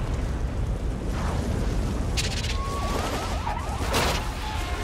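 Film disaster sound effects: a deep continuous rumble with several sharp crashes, the loudest about four seconds in, as a building breaks apart. A short high whine and wavering glides sound just before that loudest crash.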